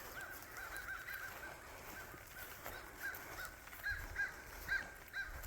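Crows cawing over and over in short calls, a few louder ones coming toward the end: the birds have been disturbed.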